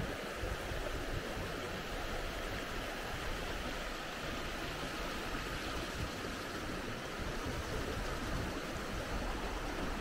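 Glacial meltwater stream flowing into a mountain lake: a steady rush of running water.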